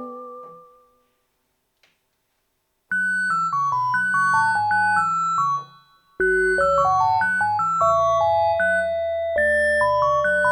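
Yamaha DX9 FM synthesizer playing a keyboard patch, a melody over a moving bass line. A previous chord fades out into about two seconds of silence; the playing starts about three seconds in, breaks off briefly, then resumes with a deeper bass added.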